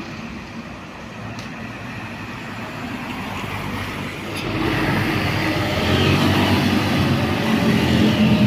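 Road traffic, then from about four and a half seconds in a heavy diesel vehicle's engine drawing nearer, its low hum growing steadily louder.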